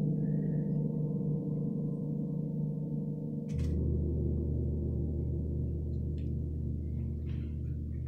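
Large Wuhan gong (tam-tam) ringing with long, sustained low tones. A fresh stroke about three and a half seconds in brings in a deeper hum that keeps ringing.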